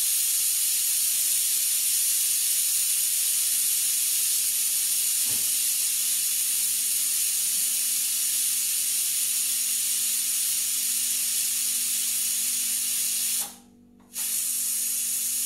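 Stovetop pressure cooker venting steam through its lifted weight valve: a loud, steady hiss as the pressure is let off by hand after cooking. The hiss cuts out for about half a second near the end, then resumes.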